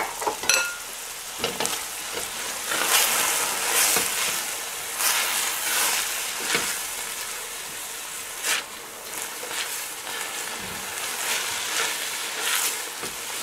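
Scallions and peas sizzling in hot oil in a stainless steel pan, with a spatula stirring and scraping against the pan's bottom now and then.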